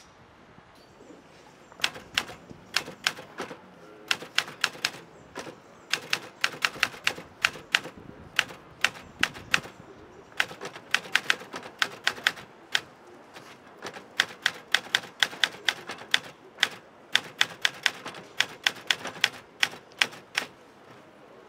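Portable typewriter being typed on: sharp key strikes in quick runs of several a second, broken by short pauses, starting about two seconds in.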